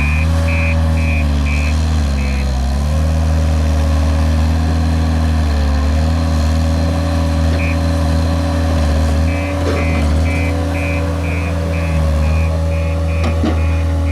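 JCB Robot skid steer loader's diesel engine running steadily, its pitch dipping briefly a few times as it takes load. A reversing alarm beeps about twice a second at the start and again through the second half.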